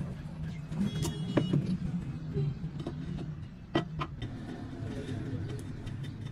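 A steady low mechanical hum, with a few sharp metallic clicks or knocks about a second and a half in and again near four seconds.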